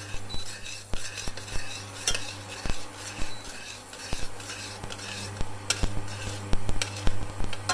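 A metal spoon stirring a thick cream sauce in a stainless steel saucepan, scraping and clicking irregularly against the pan's bottom and sides, over a steady low hum.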